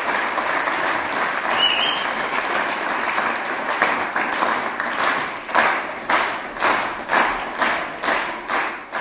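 Audience applause in a concert hall that turns into rhythmic unison clapping, about two claps a second, some five seconds in.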